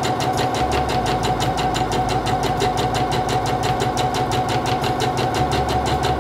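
Singer Confidence 7640 sewing machine stitching forward at a steady speed: a constant motor whine with rapid, even ticking of the needle stroke.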